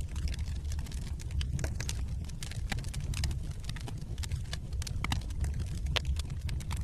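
Wood fire burning in a fireplace: a steady low rumble with frequent sharp crackles and pops from the burning logs, a few louder snaps near the end.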